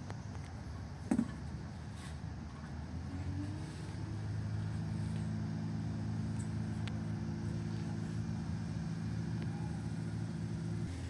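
Diesel generator engine running, its hum rising in pitch about three seconds in as it comes up to speed and then holding steady. A single click about a second in.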